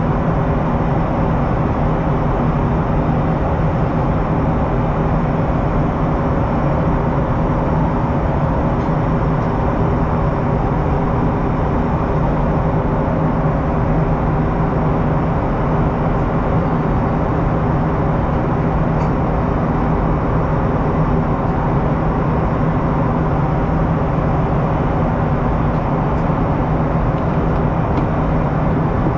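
Steady drone inside the cabin of an Airbus A320-family jetliner: engine hum under a constant rush of noise, holding an even level throughout.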